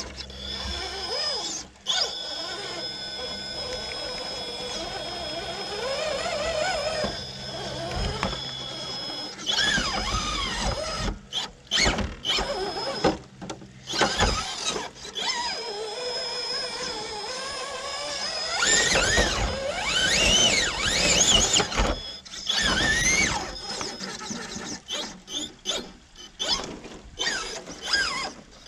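Brushless crawler motor (3BRC Yellowjacket 2000kv on a Castle Copperhead speed control) of an RC rock crawler whining under throttle as the truck climbs rock. The whine rises and falls in pitch with the throttle, and there are scattered knocks of the tyres and chassis against stone.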